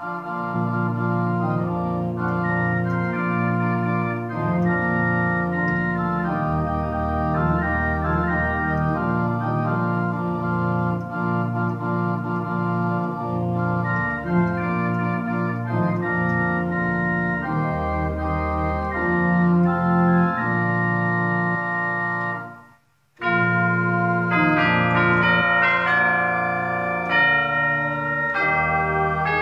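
Church organ playing a hymn in sustained chords over a bass line. The sound breaks off for a moment about three-quarters of the way through, then resumes with quicker-moving notes.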